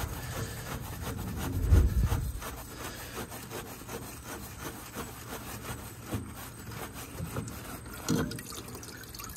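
Hand work on an excavator's fuel filter: rubbing and scraping as parts are twisted and handled, with a dull knock about two seconds in and a few light clicks later.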